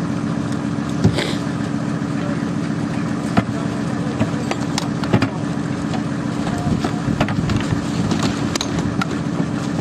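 A military vehicle's engine idling steadily, with a few sharp metal knocks and clanks from the towed howitzer's trail legs being handled; the loudest knock comes about a second in.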